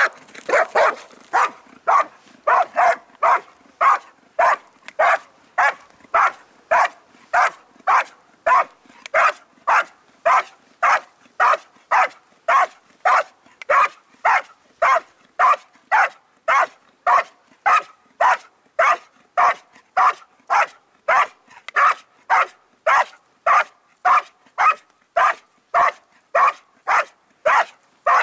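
Belgian Malinois barking steadily and rhythmically, about two barks a second without a break, at a helper hidden in a blind: the bark-and-hold exercise of IGP protection work.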